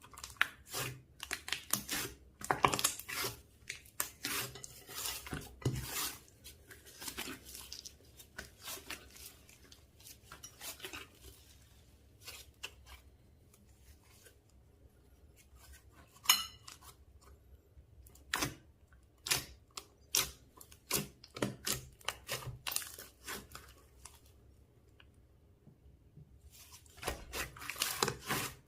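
Slime being squished, stretched and folded by hand: irregular runs of sticky clicks and crackles, with two quieter pauses, one about halfway through and one shortly before the end.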